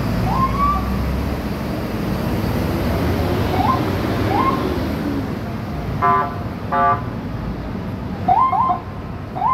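Steady rumble of slow, heavy bus traffic. Several short rising siren whoops, typical of a police patrol car's chirp siren, come a few seconds apart. About six seconds in there are two short vehicle horn blasts, less than a second apart.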